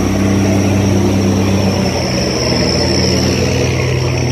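Diesel engine of a loaded cargo barge running steadily as it motors past, over rushing, churning water. The engine note drops slightly about two seconds in.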